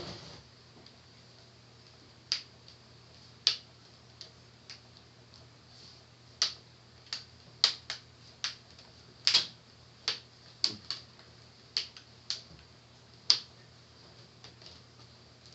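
Sharp plastic clicks and snaps at irregular intervals as a laptop's plastic screen bezel is pressed around its edge and its clips snap into place.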